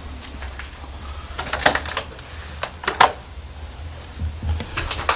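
Footsteps crunching and scraping over a debris-strewn floor: a few irregular knocks and scrapes, clustered about one and a half seconds in, again at about three seconds and near the end, over a low steady rumble.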